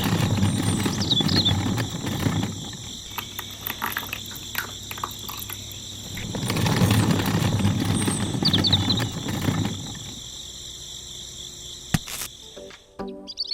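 Steady high insect chirring, like crickets, with a couple of short bird chirps. Twice a louder low rumble swells up and dies away over a few seconds.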